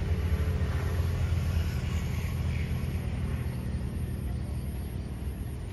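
Wind buffeting the microphone, a steady low rumble that swells and drops unevenly.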